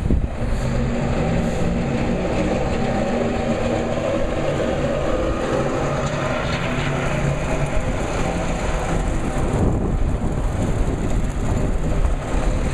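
Steady vehicle noise: an engine running with a constant low hum under a dense wash of noise.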